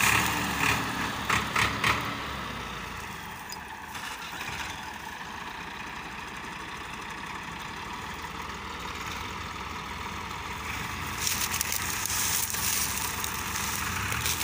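Diesel engines of two Massey Ferguson 260 tractors running together as they haul a loaded sugarcane trolley, a steady drone. A few short, sharp, loud sounds come in the first two seconds, and the engines grow louder near the end.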